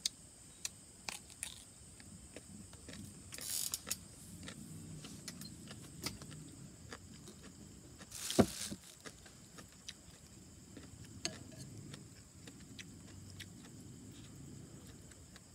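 Close-up eating sounds: chewing and small mouth clicks, with a metal spoon clinking on a ceramic bowl, sharpest once about eight seconds in. A faint steady high tone runs underneath.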